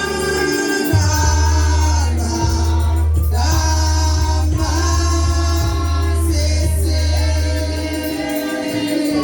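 Gospel music with a choir singing over a strong, steady bass line.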